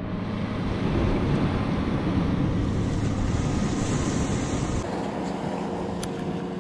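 Wind buffeting the camera microphone over waves washing against the rocks, a steady rushing noise that eases a little about five seconds in.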